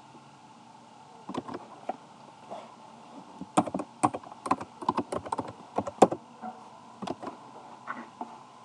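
Keystrokes on a computer keyboard: a few scattered clicks, then a quick run of about a dozen keys in the middle, and a few more near the end.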